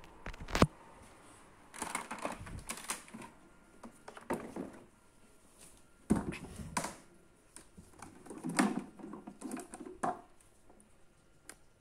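Plastic clicks, knocks and clatter from a Zelmer Aquawelt water-filter vacuum cleaner being handled with its motor off, as its housing is unlatched and the top unit is lifted off the water tank. The sounds come as a series of separate clacks and short clattering clusters every second or two.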